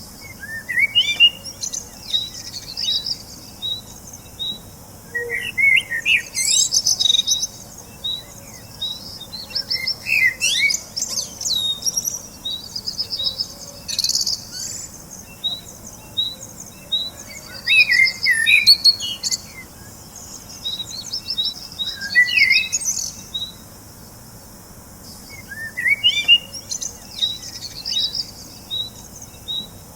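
Songbirds singing: a steady series of short, evenly spaced chirps on one high note, broken every few seconds by livelier bursts of warbling song.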